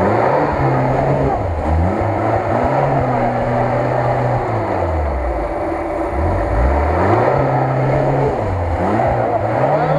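Lada Niva's engine revving up and down again and again under heavy load as the car churns forward through a flooded mud rut, its wheels spinning and throwing up mud.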